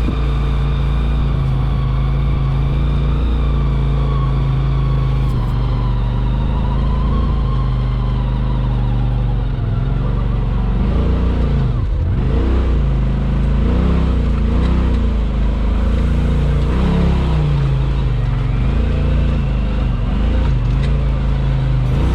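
Polaris RZR Pro XP 4 side-by-side's engine running under way, steady at first, then rising and falling in pitch again and again from about ten seconds in as the throttle is worked.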